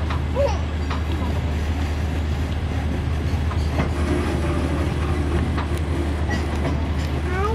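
Trackless tourist road train running steadily along a paved path, a constant low engine hum under tyre and rattle noise, heard from its open-sided carriage.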